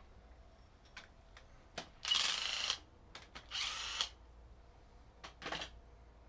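Power impact wrench run in short bursts, loosening the engine's bolts: two bursts of under a second each near the middle, then a shorter one near the end, with a few clicks between.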